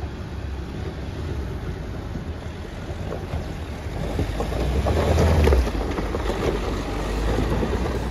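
Mahindra Thar engine pulling the vehicle over a rough, broken stretch of track, a low rumble that swells to its loudest about five seconds in, with scattered short clicks and wind on the microphone.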